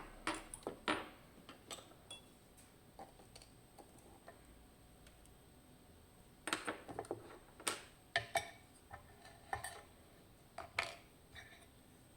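Scattered small metal clicks and clinks of a lock and its tools being handled, with a busier run of taps past the middle, as the picked Dierre lock is made ready to be taken apart.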